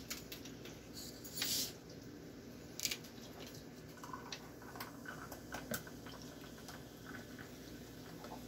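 A plastic bottle of carbonated Mountain Dew Game Fuel soda twisted open, with a short hiss about a second and a half in. From about four seconds in, the soda is poured into a glass over ice, with faint fizzing and small clicks.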